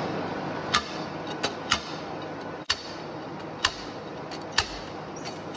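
About five sharp, light metallic clicks at irregular intervals over a steady workshop background, from the threaded puller working the ball-loading plug out of the side of a slewing bearing's ring.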